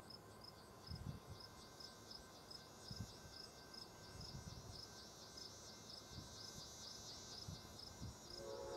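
Insects chirping in a high, even trill with a regular chirp about twice a second. Near the end a distant locomotive air horn chord starts sounding, Amtrak's Nathan K5LA five-chime horn.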